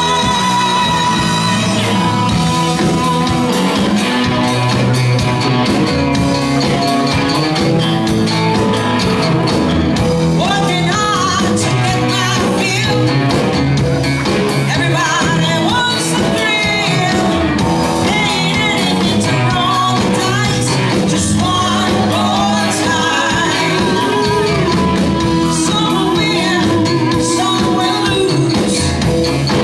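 Live rock band playing amplified in a large hall: electric guitar, drums and keyboard under a lead singer, continuous and loud.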